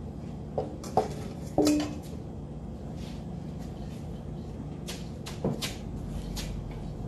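Hand mixing orange zest into flour in a large stainless steel bowl, the fingers knocking against the metal now and then. Three knocks come in the first two seconds, the loudest with a short metallic ring, and a few more come about five seconds in.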